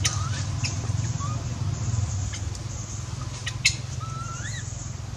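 Infant long-tailed macaque giving short, high squeaky cries, with a longer rising cry about four seconds in. A steady low rumble and a few sharp clicks sound underneath.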